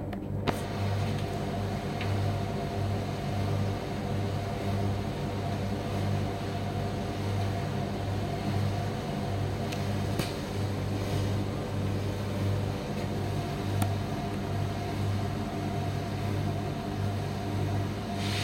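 Primus tumble dryer running: a steady motor and drum hum with a low drone that pulses over and over, plus a few faint ticks.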